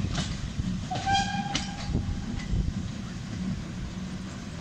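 Polish Tkh-class steam tank engine pulling away with its train, a low rumble that slowly fades as it goes. About a second in, a short whistle blast sounds for about a second.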